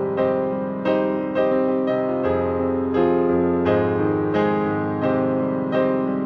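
Solo piano playing a slow piece: notes struck about every half second to a second, each ringing and fading, over held low notes.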